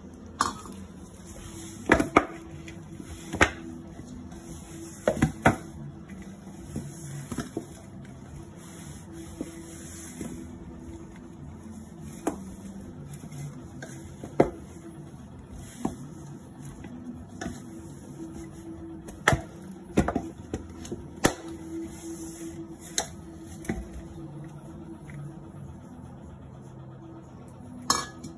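Stainless steel mixing bowl clanking and knocking as dough is kneaded by hand in it: about fifteen sharp, short knocks at uneven intervals.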